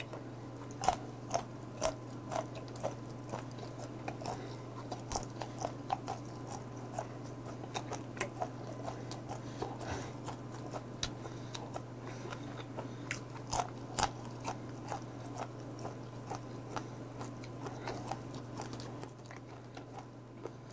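Close-miked chewing of dried squid mouths: a string of crisp crunches, about two a second at first, then more irregular, over a steady low hum.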